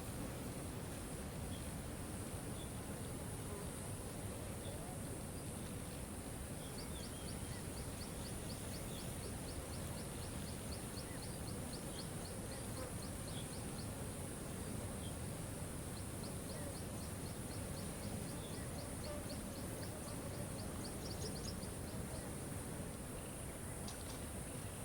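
Steady rush of a waterfall. A rapid, high ticking trill joins it twice, for several seconds each time, over a few scattered short high chirps.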